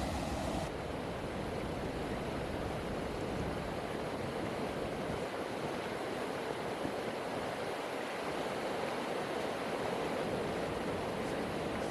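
Steady rushing of flowing river water, an even hiss with no breaks. Less than a second in, the highest part of the hiss suddenly thins out.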